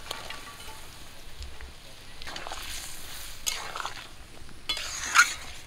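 Fish curry boiling and sizzling in a metal karahi as fried fish are tipped into the gravy and stirred in with a metal spatula, with a few scraping strokes, the loudest near the end.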